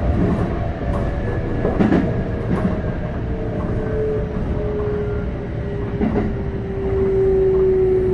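Keikyu 600 series train running, heard inside the car: steady rumble with a few clicks of wheels over rail joints, and from about halfway in the Mitsubishi GTO-VVVF inverter and traction motors' tone sliding slowly lower in pitch as the train slows.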